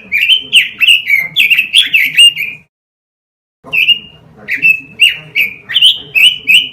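Pekin robin (red-billed leiothrix) singing: a rapid phrase of clear notes that slide up and down, a pause of about a second some two and a half seconds in, then a second similar phrase.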